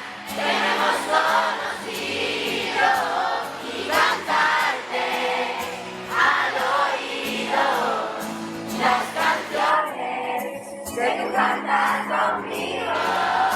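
A live pop song played through a PA, with singing over a band backing that has a steady beat. Crowd voices join in, singing along.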